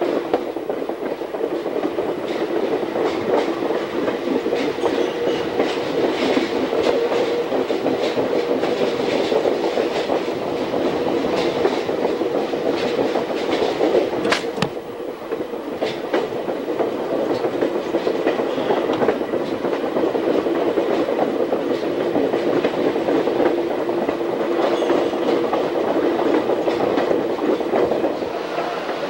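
Train rolling along jointed track: wheels clicking over the rail joints over a steady running drone, with one sharper clack about halfway through.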